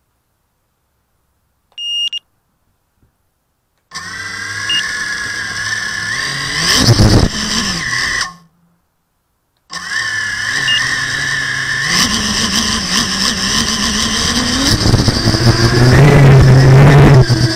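A short electronic beep, then the whine of the Expedition DAL6045T's small electric motors spinning up and rising in pitch. They cut out for about a second and a half and start again, growing louder toward the end.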